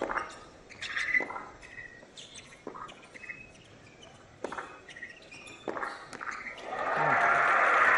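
Tennis rally on a hard court: racket strikes on the ball about every one and a half seconds, with short shoe squeaks between them. Near the end the point is won and crowd applause swells up and holds.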